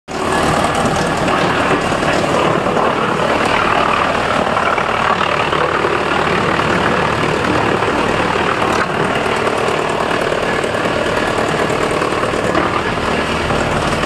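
Drum-type wood chipper running steadily and loudly, chipping logs fed in on its infeed conveyor.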